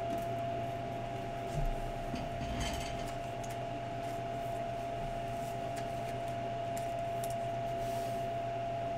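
Basketball trading cards and pack wrappers being handled: light clicks, a soft thump and a brief rustle. Under them runs a steady room hum with one high, even tone.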